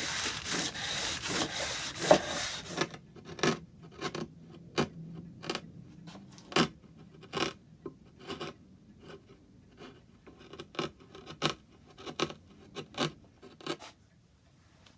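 Veneer hammer scraped over greaseproof paper on freshly glued veneer. For the first three seconds or so it is worked in quick continuous rubbing strokes, then in separate short scrapes about one or two a second, which stop about a second before the end.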